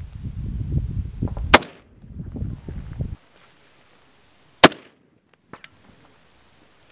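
Two single shots from SVD sniper rifles, about three seconds apart, each a sharp crack. A low rumble runs under the first shot and breaks off suddenly about three seconds in.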